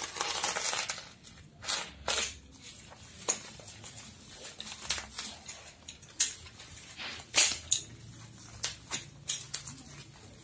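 Utility knife slicing through the taped cardboard wrapping of a long parcel, a drawn-out scrape at the start, then the crinkle and crackle of packing tape, cardboard and bubble wrap being cut and pulled apart, in short irregular bursts.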